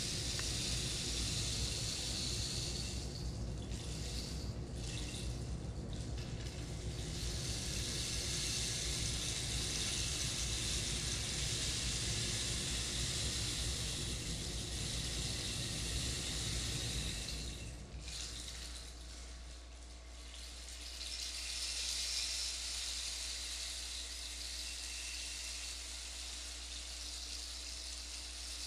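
Steady rushing water that swells and eases, with a low rumble underneath that drops away about eighteen seconds in.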